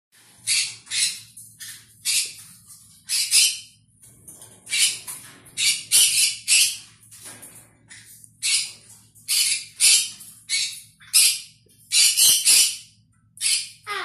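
Eclectus parrots squawking: a long run of short, harsh screeches, many coming in quick twos and threes with brief pauses between.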